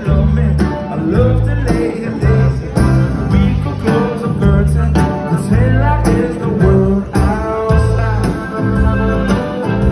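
Live band music played over a concert PA and heard from the crowd: a relaxed song led by acoustic guitar, with a male singer.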